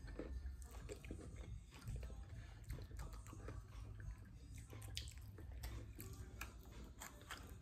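Faint chewing and biting of gingerbread-house pieces, with many small scattered crunches and clicks over a steady low hum.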